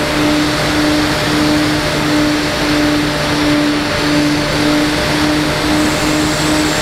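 Motor and propeller of a radio-controlled FPV model in flight, a low hum that pulses about twice a second and quickens slightly near the end, over a steady loud hiss.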